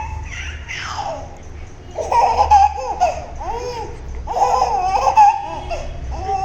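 A baby laughing in high-pitched bursts, loudest in two runs about two seconds and four and a half seconds in.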